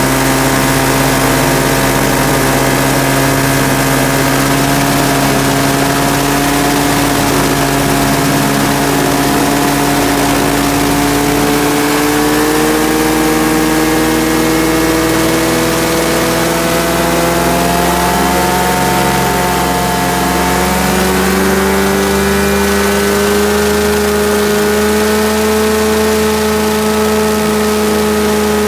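Rotax 582UL liquid-cooled two-cylinder two-stroke engine running with its propeller turning, the pitch creeping slowly up and stepping up about two-thirds of the way through. The engine runs fine, its fuel-system fault cleaned out and corrected.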